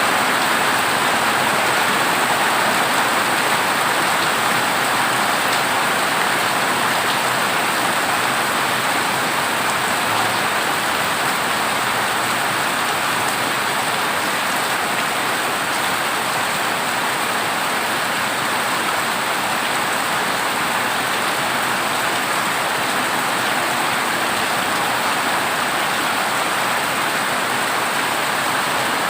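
Heavy rain falling steadily on a corrugated zinc roof, an even unbroken hiss.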